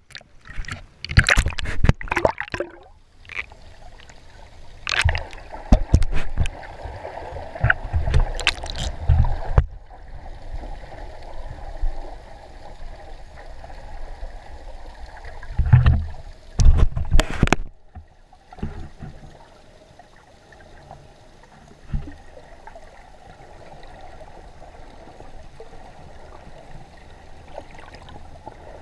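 Sea water splashing and sloshing around a handheld action camera's waterproof housing as it breaks the surface, in loud irregular bursts through the first ten seconds and again briefly later on. In between and towards the end there is a quieter, steady muffled hiss of the camera held underwater.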